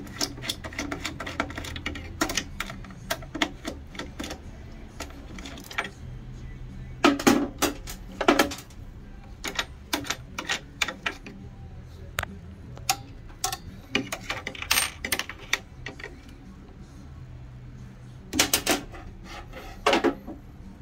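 Irregular metallic clicks and taps of a screwdriver working a screw out of the sheet-steel frame of an Oki Pacemark 3410 impact printer, behind the drive belt. Louder clatters come about seven seconds in and again near the end.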